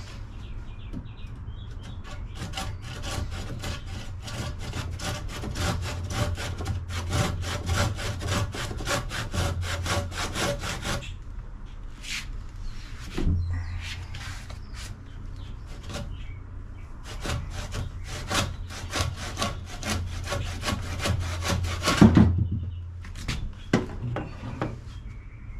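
Stanley handsaw cutting through a 4x4 wooden post: brisk, even back-and-forth strokes in two long runs with a pause between. The sawing ends with a loud knock near the end.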